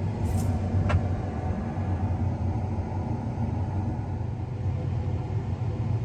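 Steady low rumble of a vehicle on the move, with a couple of faint clicks in the first second.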